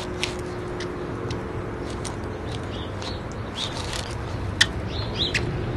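Steady outdoor background hum with scattered short, high chirps and clicks; a sharp click about four and a half seconds in is the loudest.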